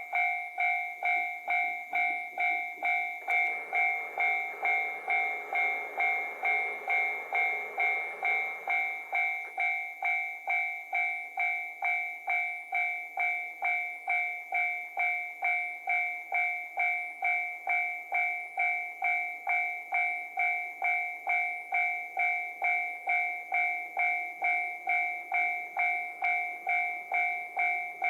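Japanese railway level-crossing warning bell ringing: a rapid, even electronic ding repeating about two and a half times a second, which signals that a train is approaching. A broader rushing noise rises and fades under it between about 3 and 9 seconds in.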